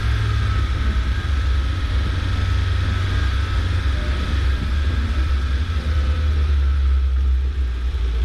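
1987 Suzuki SJ413's engine running steadily, a continuous low drone that holds an even pace throughout.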